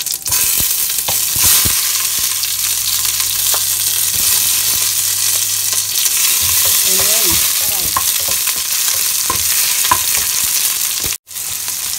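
Sliced onions sizzling in hot cooking oil in a stainless steel pot, the sizzle starting sharply as they go in, while a wooden spatula stirs them with small knocks against the pot. The sound cuts out for a moment about eleven seconds in.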